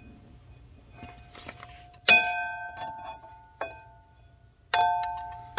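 Steel breaker bar and socket clanking against the track loader's steel undercarriage: a sharp clank about two seconds in, two lighter knocks, then another sharp clank near the end, each left ringing with a metallic tone that fades over about a second.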